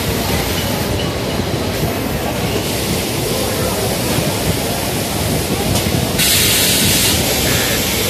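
Steady machine din from a shirt armhole press and the factory floor, with a loud hiss from the press about six seconds in that lasts about a second.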